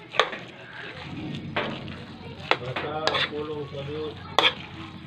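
Glutinous rice for biko being stirred in a metal pan, the utensil scraping the pan and giving several sharp clinks about a second apart.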